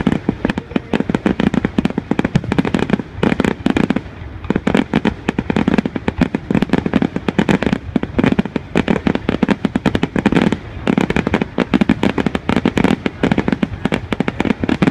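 Aerial fireworks display: many shells bursting in a dense, continuous barrage of bangs and crackles, several a second.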